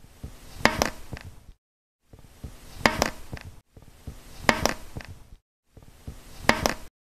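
Click beetle snapping: sharp clicks, a loud pair close together with a few fainter ones, repeated in four short takes cut apart by dead silence. The snap is the click mechanism the beetle uses to leap when disturbed.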